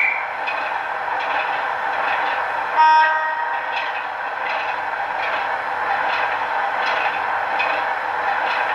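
OO gauge model 4-TC unit's DCC sound decoder, played through its small onboard speaker: a steady train running hiss with light irregular clicks, and one short warning-horn blast about three seconds in, the loudest sound.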